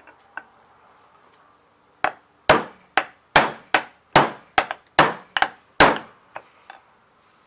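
Hammer tapping a homemade roll pin starter punch to drive a roll pin into an AR-308 gas block: a dozen or so sharp metallic strikes at about two a second, starting about two seconds in. Some carry a brief high ring, and two lighter taps come near the end as the pin goes in.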